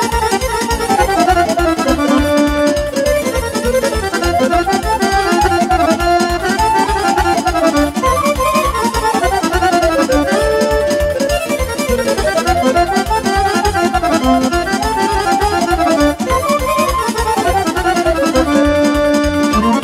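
Live traditional-style band music: a piano accordion plays a fast, winding melody over arranger keyboards, with a steady, quick beat underneath.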